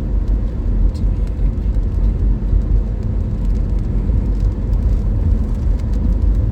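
Car interior noise while driving: a steady low rumble of road and engine noise, with a few faint clicks.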